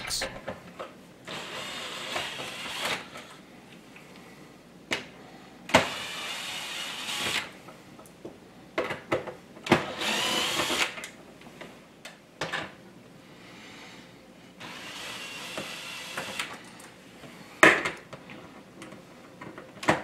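Cordless drill-driver with a T20 Torx bit backing out sheet metal screws from a dishwasher door in several short runs of a second or two each. Short clicks and knocks come between the runs.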